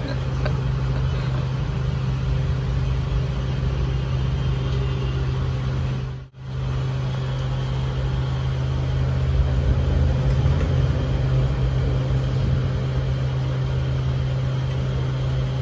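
A steady low machine hum with an even hiss over it, dipping out briefly about six seconds in.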